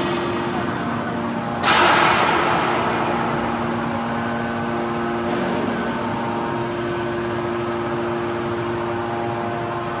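Hydraulic power unit of a scrap metal baler running with a steady hum. About two seconds in, a sudden loud hiss-like burst that fades over about a second.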